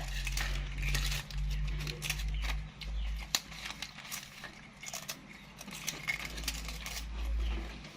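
Scattered crisp clicks and crunches of a baby monkey chewing a crunchy puffed rice cake, over a low rumble that comes and goes.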